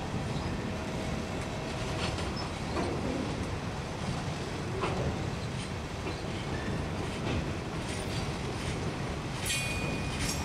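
Freight cars rolling past: a steady rumble of steel wheels on rail with scattered clicks and knocks, and a brief high wheel squeal about a second before the end.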